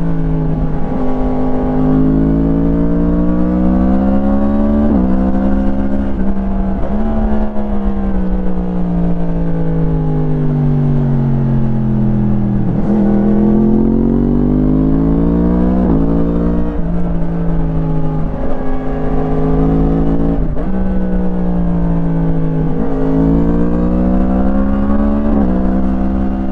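2017 Yamaha MT-10's crossplane inline-four through an Akrapovič slip-on exhaust, heard onboard, revving up and down through the gears: several sharp gear changes, a long falling deceleration from about two seconds in to about twelve, then pulling hard again, over a steady low rumble.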